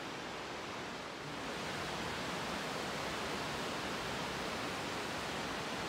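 Waterfall rushing steadily, a little louder from about a second and a half in.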